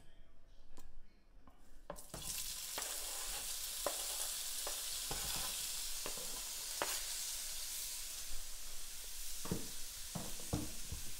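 Sliced chicken sausage tipped into hot grapeseed oil in a skillet starts sizzling suddenly about two seconds in and keeps up a steady sizzle. A few light knocks sound as it is moved around the pan.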